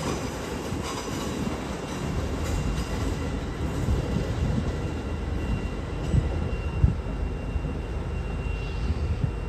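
A train running slowly at the platform: a low, steady rail noise with two short knocks about six and seven seconds in.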